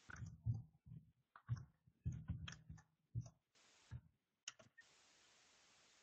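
A string of irregular soft clicks and low knocks over about five seconds, each cut off sharply into dead silence. They stop shortly before the end, when a steady faint hiss returns.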